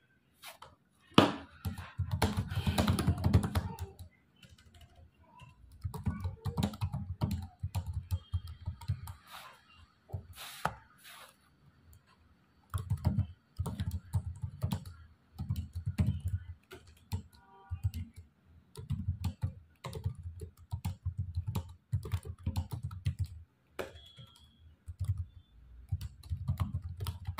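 Typing on a computer keyboard: rapid key clicks in short bursts with brief pauses between them.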